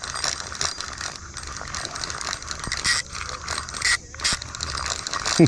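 Fishing reel being cranked steadily to bring in a hooked smallmouth bass, its gears making a fast, even clicking rattle. A short falling sound is heard right at the end.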